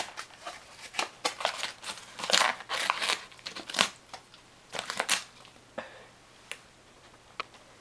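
A dog tearing and crumpling a sheet of printer paper with its teeth while pinning it with a paw, in irregular rustling, ripping bursts that thin out to a few crackles after about five seconds.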